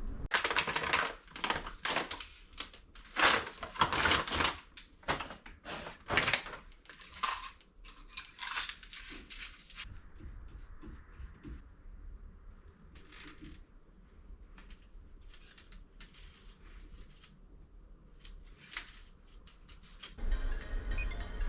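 Irregular clicking, knocking and crackling, like hard parts being handled, busy for the first ten seconds or so and then sparse and quieter. Music comes in near the end.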